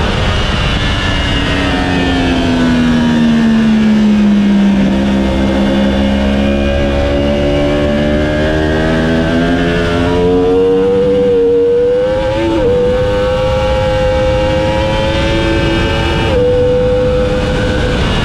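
Yamaha YZF-R1's crossplane inline-four heard onboard at race pace: its pitch falls for the first four seconds or so as the bike brakes hard for a corner, then rises steadily as it accelerates out at full throttle. Two sharp pitch drops, about two-thirds through and near the end, are upshifts. Wind rush is heard under the engine.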